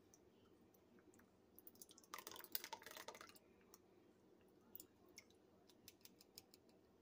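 Mostly very quiet: thick Alfredo sauce sliding out of a tipped glass jar into a pot of pasta shells, with a dense patter of small wet crackles lasting about a second, about two seconds in. A few faint clicks follow as the jar is handled.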